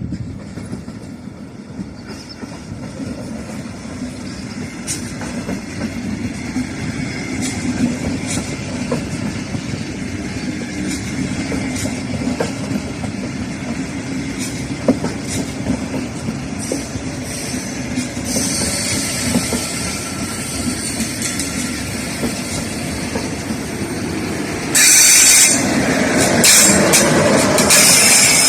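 Regional express hauled by a DB class 112 electric locomotive with Bombardier double-deck coaches, rolling in slowly and growing steadily louder, with clicks from the wheels over the track. A high-pitched squeal of the wheels sets in about two-thirds of the way through, and a much louder, harsh squeal takes over near the end as the train brakes.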